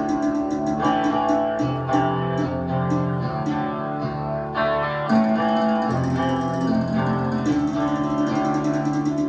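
Recorded guitar music playing through a pair of bookshelf loudspeakers driven by a McIntosh MC275 valve power amplifier, heard in the room.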